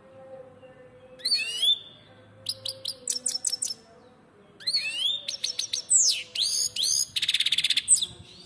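Goldfinch singing: several bursts of quick twittering chirps and sweeping notes, ending near the end with a fast buzzy trill.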